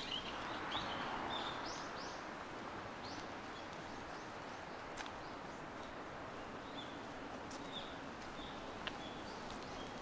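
Small birds chirping in short, scattered calls over a steady outdoor hiss. A louder stretch of noise in the first couple of seconds, and a few single sharp clicks.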